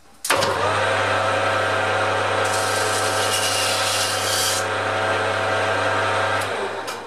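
Metal lathe starting up and running with a steady motor hum as the chuck spins. About two and a half seconds in, a hand deburring tool scrapes the edge of the bush's bore for about two seconds, then the lathe is switched off and runs down near the end.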